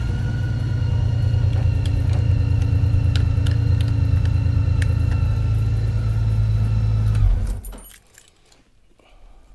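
2015 Honda Gold Wing GL1800's flat-six engine idling steadily, with a few light clicks over it, then shut off about seven seconds in.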